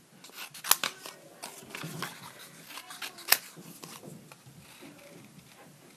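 Small craft scissors snipping through white card while fussy cutting out stamped images: a handful of sharp snips, the loudest just under a second in and just past three seconds in, with paper rustling as the piece is turned.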